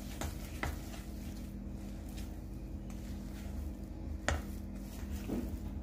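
Silicone spatula stirring and folding soft cookie dough in a stainless steel bowl, with a few sharp knocks of the spatula against the bowl; the loudest knock comes about four seconds in.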